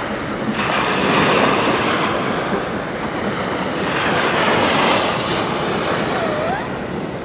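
Small ocean waves breaking and washing up over a sandy beach, the surf swelling about a second in and again a few seconds later.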